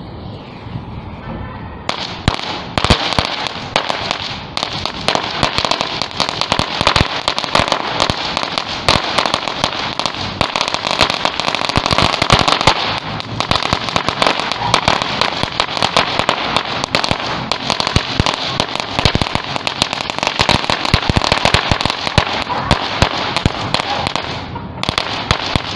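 A string of firecrackers going off in a fast, continuous rattle of bangs, starting about two seconds in and running for over twenty seconds, with a short break near the end before more bangs follow.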